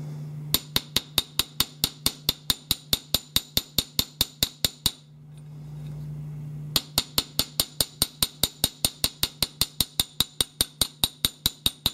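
Small gunsmithing hammer, about 4 ounces, tapping rapidly on the steel head of an old rifle screw, about five light metallic strikes a second, stopping for under two seconds in the middle and then resuming. The strikes are peening the damaged head so the metal flows back into the boogered screw slot.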